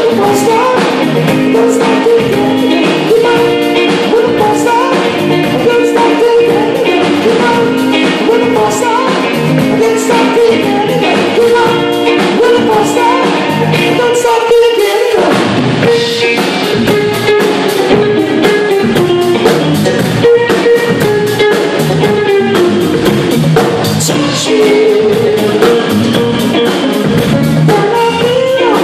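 Live rock band playing: drum kit, electric guitar and bass guitar, with singing over them.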